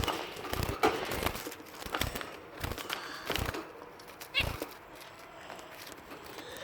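Scattered soft knocks and rustles, with one brief high, quickly pulsed chirp from a finch about four seconds in.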